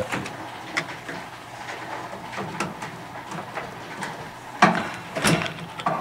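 A few light clicks and knocks of plastic and sheet-metal parts being handled as the microwave oven's door-switch panel is worked on, with two sharper knocks near the end.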